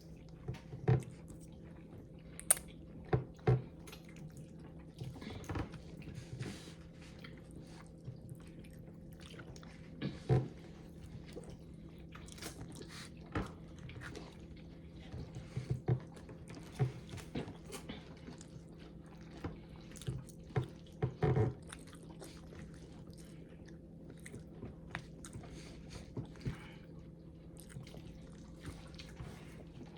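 A person eating ramen close to the microphone: scattered chewing and mouth clicks, with a steady low hum underneath.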